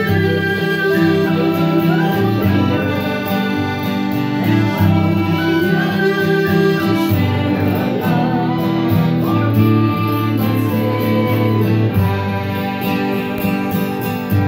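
A tune played on a button accordion, its held reed notes carrying the melody, with an acoustic guitar strumming chords behind it.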